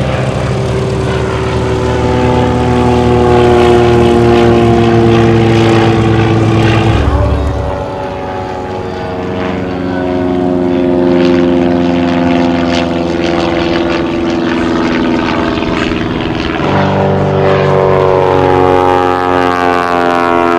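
Single-engine piston propeller float planes flying past overhead, each giving a steady engine-and-propeller drone whose pitch slowly falls as it goes by. The sound changes abruptly twice, about 7 and 16 seconds in, as one plane gives way to the next.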